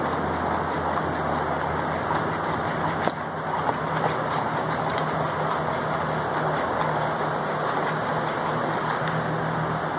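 A steady machine drone with a low hum running evenly throughout, with a couple of faint knocks a little after three seconds in.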